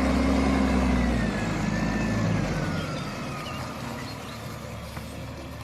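Truck engine sound effect running steadily and slowly fading out, with a faint high whine gliding downward in the first few seconds.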